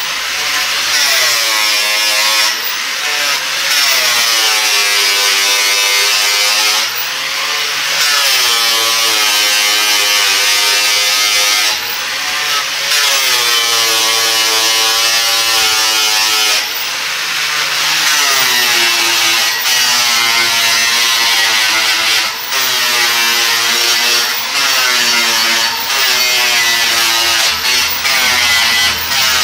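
Angle grinder polishing stainless steel railing tube with a pad of cement-sack paper, running loud with a steady hiss of rubbing. Its whine sags in pitch while it is pressed in and rises again each time it is eased off, several times over.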